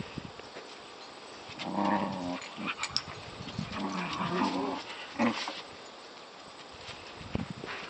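Border collies play-growling during rough play: two low growls of about a second each, a couple of seconds apart, with a few sharp short scuffling clicks.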